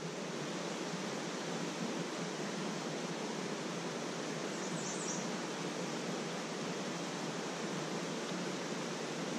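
Creek water rushing steadily, an even hiss of flowing water.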